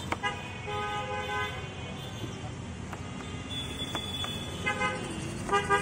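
Vehicle horns honking in street traffic: one toot just after the start, a longer one around a second in, and short repeated toots near the end, the loudest of them, over a steady low traffic din.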